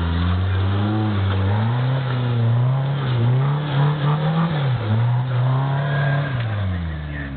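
Off-road buggy engine revving hard under load as it climbs a steep dirt bank with its wheels spinning. The revs rise, waver up and down several times, then drop back near the end.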